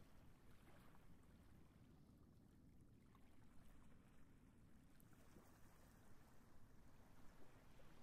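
Near silence: a faint wash of small waves lapping on a sandy shore, with a low rumble.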